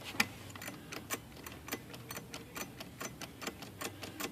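Smith Corona Silent manual typewriter mechanism clicking quickly and unevenly, about five light clicks a second, as the machine is worked to test its repaired ribbon drive ratchet.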